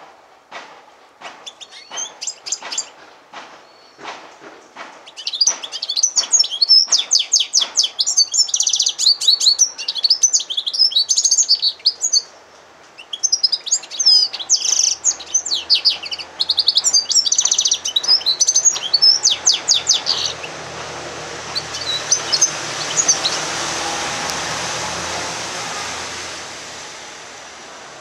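Yellow-fronted canary × domestic canary hybrid singing a long, fast song of high trills and twittering phrases, with a short break in the middle. A run of short ticks comes before the song starts, and after the song a steady hiss with a low hum takes over, with only a few scattered notes.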